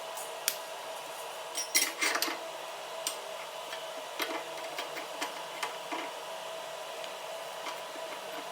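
Light metal clinks and rattles of small steel pieces being handled, a cluster of them about two seconds in and scattered single ones after, over a steady electrical hum.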